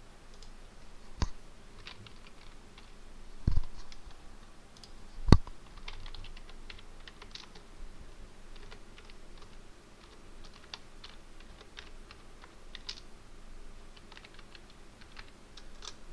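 Typing on a computer keyboard: scattered key clicks at an uneven pace, with three louder thumps in the first six seconds.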